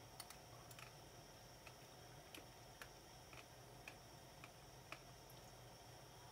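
Near silence: faint, light ticks about every half second, spaced unevenly, over a low steady hum.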